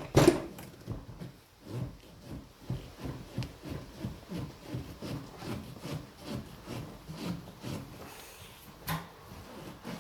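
Rubber heated grip being forced and twisted onto a greased ATV handlebar: a steady run of short rubbing strokes, two or three a second, with a sharper knock near the start and another near the end.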